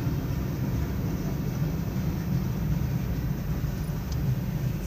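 Norfolk Southern freight train moving slowly: a steady low rumble with no distinct wheel clicks.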